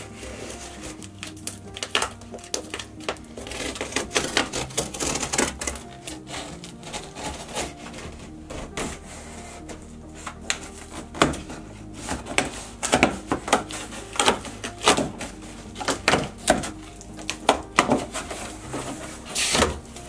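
Large cardboard shipping box being opened by hand: packing tape cut and torn, and cardboard flaps scraped and pulled open, in many short, irregular rips and clicks that come thickest in the second half. Background music plays underneath.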